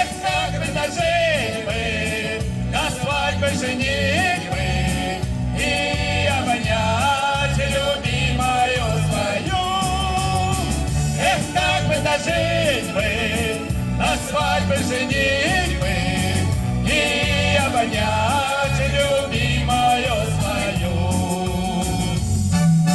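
A man and a woman singing a wartime song as a duet into microphones, over a recorded backing track with a steady beat played through a PA speaker.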